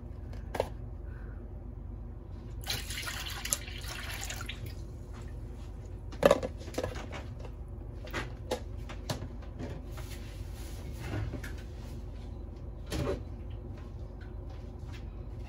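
Beef broth poured into a wok, splashing and hissing for about two seconds from roughly two and a half seconds in. Scattered clicks and knocks follow, the loudest about six seconds in.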